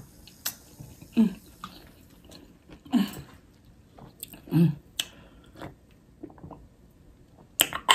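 Close-miked mouth sounds of someone eating and drinking: soft smacks and clicks, a few brief low hums, and a sip from a cup, with two sharp clicks near the end.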